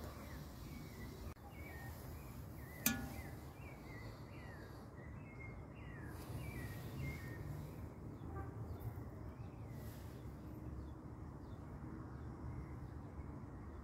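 A bird chirping in a run of short, falling notes, repeated for several seconds and then now and then, over a steady low background rumble. A single sharp click comes about three seconds in.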